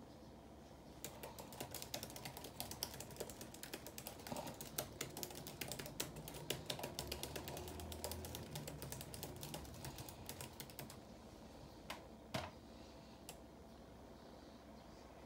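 Typing on an HP laptop keyboard: a fast, uneven run of key clicks for about ten seconds, then a few single key presses near the end.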